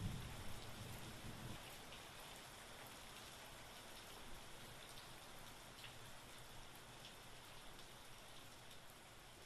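Faint, steady hiss with scattered light ticks. A low sound dies away over the first second and a half.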